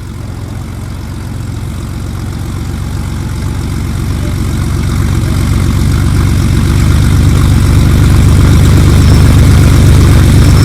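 A vehicle engine running with a steady low rumble that grows steadily louder.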